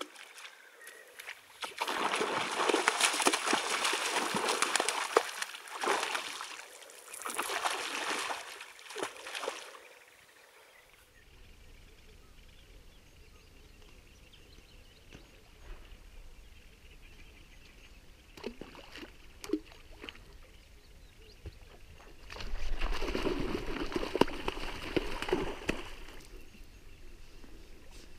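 Water splashing and sloshing as a barbel caller rod (roepstok) is worked in the river to call sharptooth catfish: several seconds of splashing strokes, a quieter spell, then another burst of splashing near the end.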